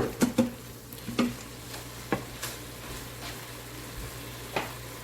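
Ground meat sizzling in an Instant Pot. A few sharp taps come in the first two seconds, and one more near the end.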